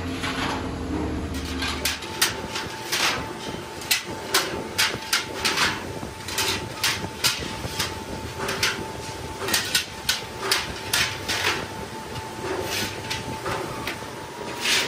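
Steel chaff cutter blades clinking and clanking against a steel-bar rack and against each other as they are lifted off one by one, in a quick, irregular run of sharp metallic knocks. A low hum in the background stops about two seconds in.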